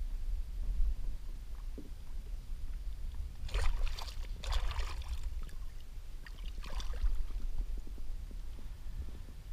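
Redfish splashing and thrashing at the water's surface beside the boat as it is grabbed by hand. There is a burst of splashing about three and a half to five seconds in and a shorter one near seven seconds, over a steady low rumble.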